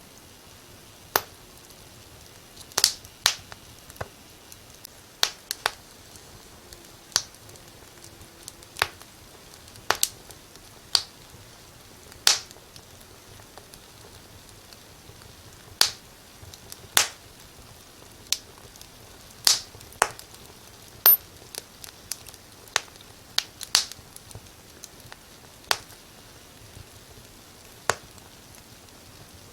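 Wood fire crackling in a fireplace: irregular sharp pops and snaps, roughly one a second and varying in loudness, over a faint steady hiss.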